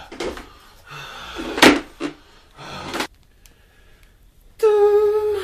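A few sharp knocks and bangs, like doors or cupboards being hit in a small room, then a short pause and a steady held tone near the end.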